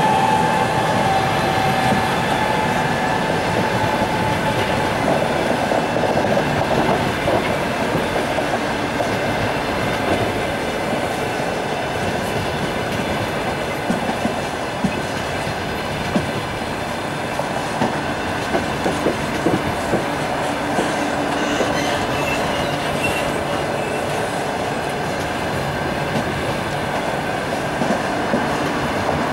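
Double-decker passenger coaches rolling past on the rails: a steady rumble of wheels on track, with clickety-clack as the wheelsets cross rail joints. A high ringing tone fades away over the first few seconds.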